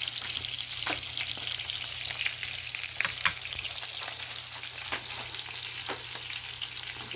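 Oil sizzling steadily under battered pollack fillets pan-frying on an electric griddle, with scattered pops and crackles.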